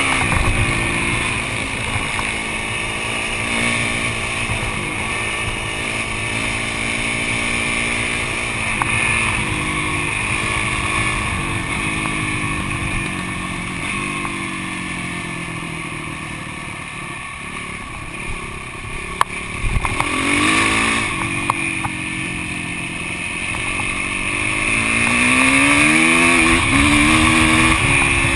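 Yamaha YZ450F's single-cylinder four-stroke engine running under way, heard from on the bike. The revs ease off about halfway through, then climb again with rising pitch near the end as it picks up speed.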